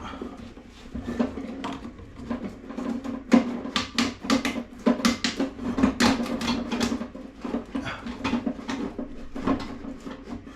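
Irregular clicks, knocks and scraping as toilet cistern and flush valve parts are handled and worked loose, busiest in the middle.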